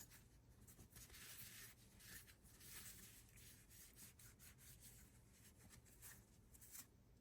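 Faint irregular rubbing and scratching strokes, with short clicks between them, over a low steady hum.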